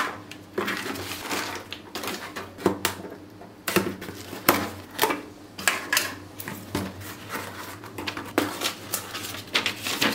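Unpacking by hand: a plastic courier bag rustling, a taped cardboard box being opened, and a paper sheet crinkling near the end, heard as irregular crackles and knocks.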